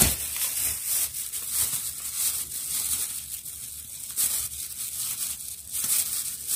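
Thin plastic shopping bag crinkling and rustling, in an irregular crackle, as a hand grabs and handles it.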